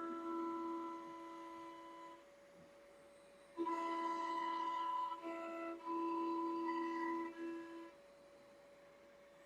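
Onefinity CNC router at work: a steady spindle whine, with the stepper motors sounding sustained pitched tones that start and stop in blocks of a few seconds as the gantry moves.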